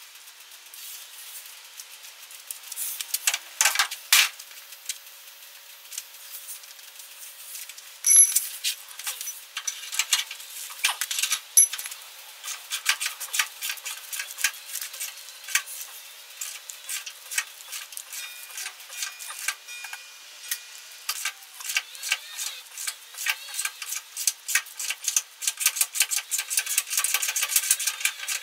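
Metal hand tools clinking and rattling, a string of sharp clicks and knocks that gets quicker and more regular near the end.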